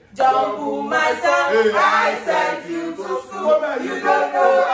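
Several voices singing a Nigerian nursery rhyme together, unaccompanied.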